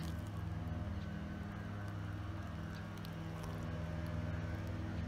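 A steady, low engine drone that holds one pitch throughout.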